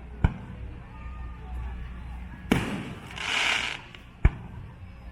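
Aerial fireworks bursting: three sharp bangs about two seconds apart, the middle one loudest with a rumbling echo and followed by a short hiss.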